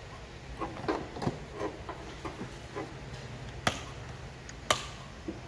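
Hands working on car parts: a run of light knocks and taps, then two sharp clicks, the kind made when plastic covers or clips are handled and snapped into place.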